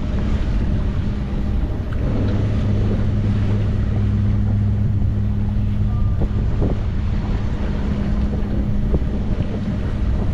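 A sailboat's inboard diesel engine running steadily under way, a constant low drone, with wind buffeting the microphone.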